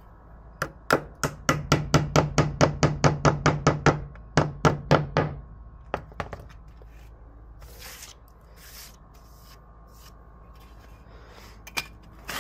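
Hammer blows in a quick, even run of about four strikes a second, a brief pause, then four more, fixing a grey conduit to a brick wall; a few lighter scattered knocks follow, with one sharper knock near the end.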